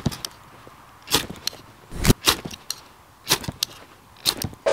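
Ferro rod scraped with a steel scraper: about half a dozen quick, rasping strokes, roughly one a second. The sparks fail to light the dry wood shavings.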